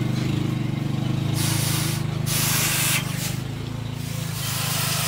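Hot forged steel knife blade held in a water trough, hissing and sizzling in several bursts as it is quenched and moved through the water. A steady low mechanical drone hums underneath.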